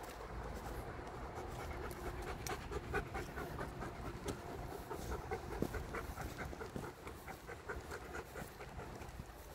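Dog panting in quick, rhythmic breaths while walking on a leash.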